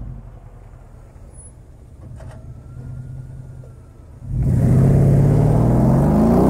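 Mercedes GL450's V8 exhaust, with a 20 mm hole drilled before each rear muffler, rumbling low at light throttle, then about four seconds in a sudden hard acceleration, loud, with the engine note rising in pitch as the SUV pulls away.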